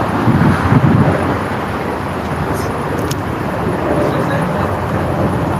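Steady road traffic noise, with a short louder low-pitched swell in the first second and a single click about three seconds in.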